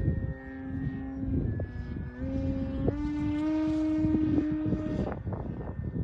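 Electric motor and propeller of an E-flite Carbon-Z Cessna 150 RC model plane, a steady whine that steps up in pitch twice as the throttle is opened and falls away near the end, with wind buffeting the microphone.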